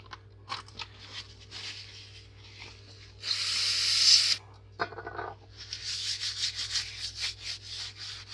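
Rubbing and scraping of items being shifted on a repair bench. There is a louder scrape lasting about a second, about three seconds in, and a run of quick rubbing strokes near the end.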